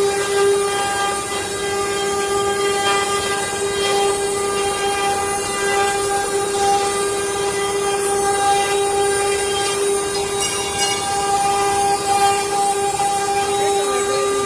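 CNC router spindle running and cutting, a steady whine held at one pitch over the rasp of the cut.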